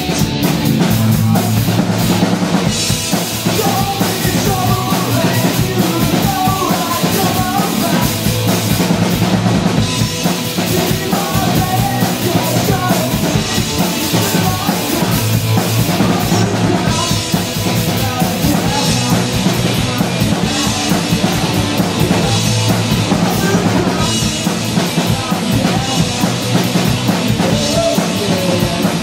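Live punk rock band playing: electric guitar through an amp and a drum kit, loud and steady throughout.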